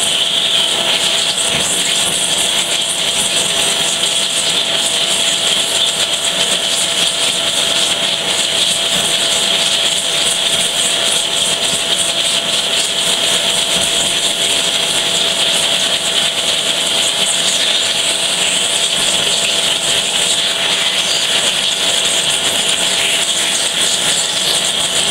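Vacuum cleaner running loud and steady, its hose nozzle held against a laptop's cooling vent to suck dust out of the heatsink: a constant rush of air with a faint steady whine.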